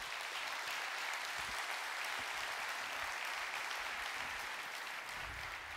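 A large audience applauding, a dense, steady clapping that eases off slightly near the end.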